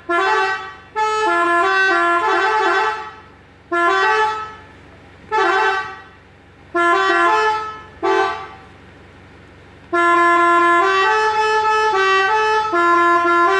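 Telolet horn with three trumpets, played from a 21-button module, honking short melodic phrases of stepping notes. Several brief tunes are separated by pauses, then a longer continuous tune starts about ten seconds in.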